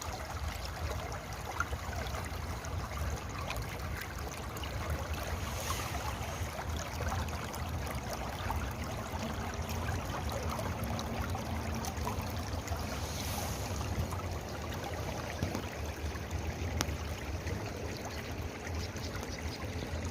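A stream of water running and trickling steadily, with a low rumble underneath.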